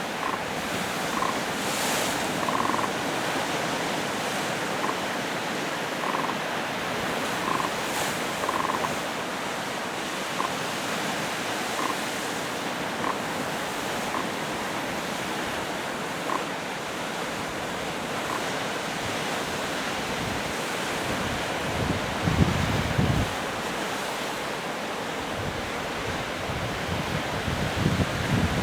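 Lake Ontario waves washing in a steady rushing surf. Wind buffets the microphone about 22 seconds in and again near the end. Faint short high notes come every second or two through the first half.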